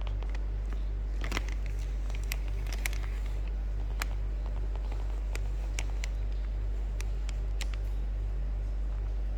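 Steady low hum, with scattered small clicks and crackles, most of them in the first few seconds.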